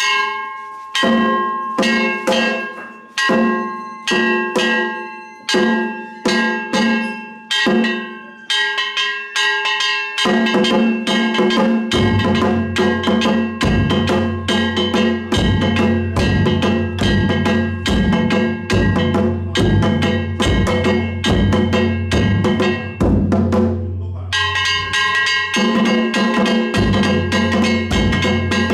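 Danjiri bayashi on a danjiri float's gong and taiko drums. For about the first ten seconds the gong is struck in slower, ringing strokes; then a fast, dense beat sets in, with the big drum's deep beats joining a couple of seconds later. Near the end the gong drops out for a moment before the rhythm resumes.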